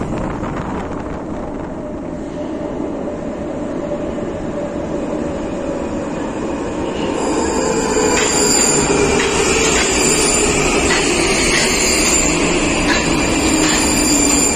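Prague metro train rolling in along the platform and slowing: a rumble that grows louder about seven seconds in, with a whine that falls in pitch as it brakes and a run of clicks from the wheels passing over the rails.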